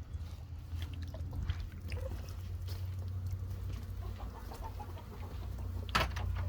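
Chickens clucking softly over a steady low rumble, with one sharp click about six seconds in.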